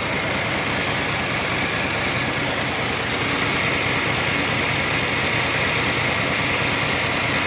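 Honda City engine idling steadily. It was started directly because the fuel pump's own wiring carries no current.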